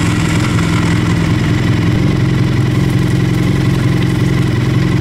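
Honda VF1000's V4 motorcycle engine idling steadily, just after being started.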